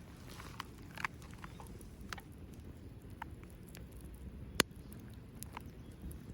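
Small wood fire crackling in a Belmont TABI fire grill: irregular scattered pops and ticks over a low rumble, with one sharp snap about four and a half seconds in.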